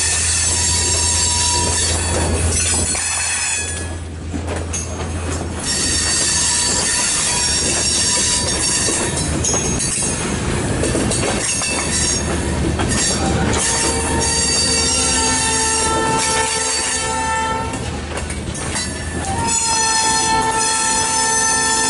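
Loaded centerbeam lumber cars of a freight train rolling slowly past with a steady rumble and rolling noise. Steel wheels squeal on and off, in steady high tones, loudest in the second half.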